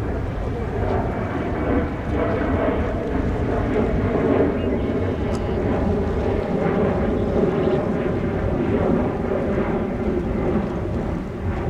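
Jet airliner engines running: a steady, loud noise with faint humming tones in it.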